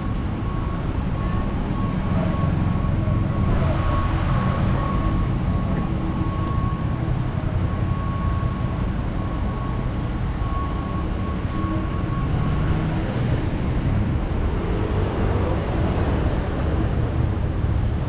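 Steady low rumble of a moving vehicle, with a steady high whine that fades out about two-thirds of the way through.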